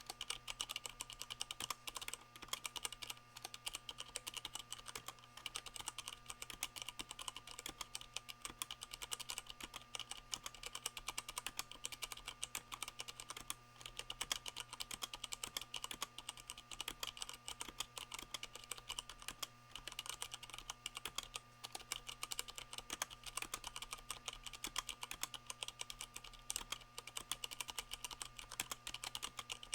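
Continuous fast typing on a 65% mechanical keyboard with tactile Cherry MX Brown switches, the keycaps damped by rubber O-rings. Many quick keystrokes a second, with a few louder strokes along the way, over a faint steady hum.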